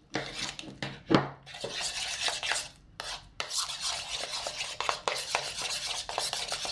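Metal spoon stirring and scraping thick pudding and whipped topping around a mixing bowl, with small clinks against the bowl. It pauses briefly about three seconds in.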